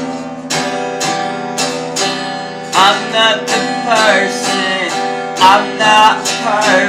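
Acoustic guitar strummed steadily, about two strokes a second, in an instrumental stretch of a self-accompanied song.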